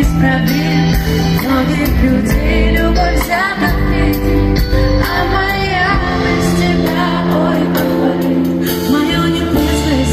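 Loud pop music with a singing voice over a steady bass and held chords, played live at a concert.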